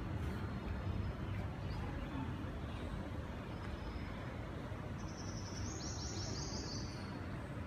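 Outdoor ambience: a steady low rumble of distant road traffic, with a few faint high bird chirps about five seconds in.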